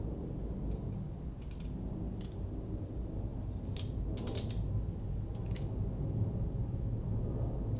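Light clicks and taps of carbon-fibre drone frame parts and small hardware knocking together as they are handled and fitted, with a cluster of sharper clicks about four seconds in. A steady low hum runs underneath.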